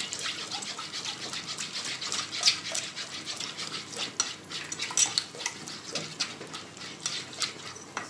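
Wire whisk beating a runny chocolate batter in a saucepan: quick, rhythmic strokes, several a second, with the wires scraping and clicking against the pan.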